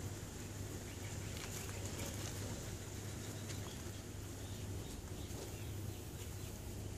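Quiet outdoor background: a steady low hum with a few faint, scattered clicks.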